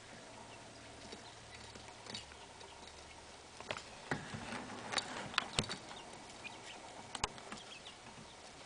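Two-day-old quail chicks pecking feed from a hard dish: scattered sharp ticks and clicks, bunched between about four and seven seconds in.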